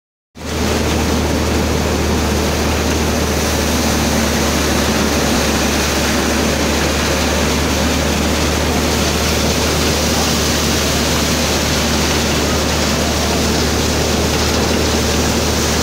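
Malwa Agro Industries tokri-model thresher running at a steady speed: a loud, even rushing noise with a constant low hum underneath, no change through the whole stretch.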